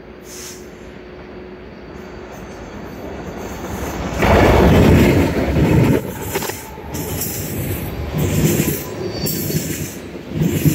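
Freight train's diesel locomotives approach and pass close by, loudest from about four to six seconds in, then a string of tank cars rolls past with high-pitched wheel squeal on the curve and repeated rumbles of the wheels.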